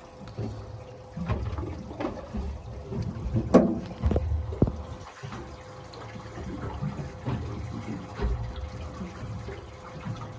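Caught tailor splashing and thrashing in water in a tank on a boat as a net stirs them up, with irregular sloshing and knocks and one sharp louder knock a few seconds in. A faint steady hum runs underneath.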